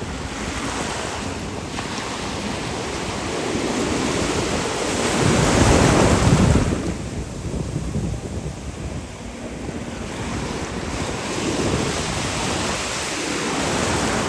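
Ocean surf washing, with wind buffeting the microphone; a wave breaks loudest about five to seven seconds in, then the wash fades.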